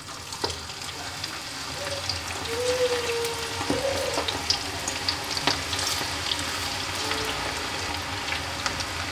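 Hot oil sizzling and crackling as handfuls of onion and gram-flour pakora batter are dropped into it. It grows louder over the first few seconds as more batter goes in, then holds a steady frying hiss.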